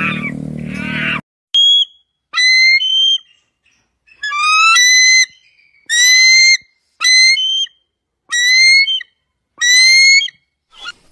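A series of about seven short, high whistled calls, each rising in pitch, with brief silent gaps between them. In the first second the tail of a lower animal call fades out.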